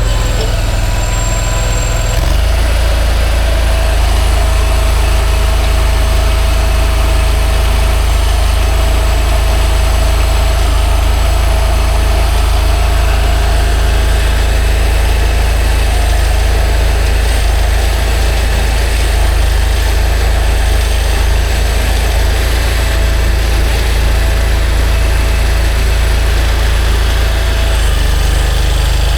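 Kanga mini loader's engine running steadily. It revs up about two seconds in as the front-mounted auger bores a post hole, and drops back just before the end.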